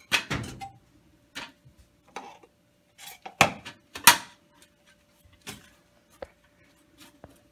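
Knife scraping and tapping while chocolate spread is spread on toast on a plate: scattered clicks and short scrapes, with two sharper knocks around three and a half and four seconds in, over a faint steady hum.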